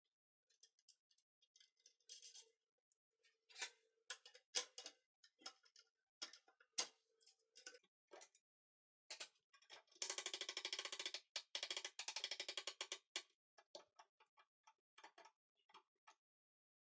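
Hand-crank winch being worked: scattered metal clicks and taps, then about three seconds of rapid ratchet-pawl clicking as the drum turns, about ten seconds in, followed by a few more single clicks.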